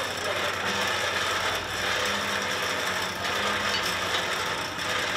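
Steady rushing noise of a blacksmith's coal forge, its fire fanned by a blower, with a low hum underneath.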